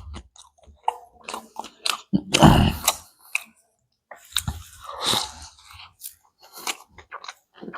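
Close-up chewing of a pani puri (golgappa) filled with chutney: irregular wet mouth sounds and small crunches, with a louder bite or chew about two and a half seconds in and again about five seconds in.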